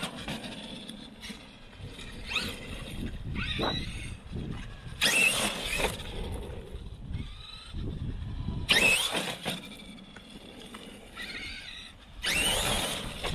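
Traxxas E-Revo RC truck's electric motor and drivetrain whining up in short full-throttle bursts, four times, each with a sharply rising pitch, with lower running noise between the bursts.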